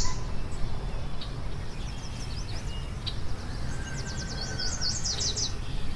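Small birds chirping in quick, high-pitched notes: a few scattered chirps about two seconds in, then a fast run of short descending chirps near the end. A steady low rumble runs underneath.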